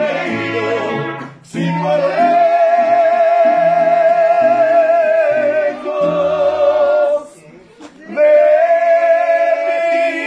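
Mariachi band playing a ranchera while a man sings long held notes with vibrato over a walking bass line. The music breaks off briefly twice, about a second and a half in and again near the end.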